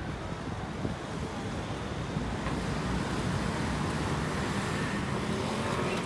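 Road traffic beside the promenade: a car passing, its noise swelling over the second half, over a steady outdoor rumble.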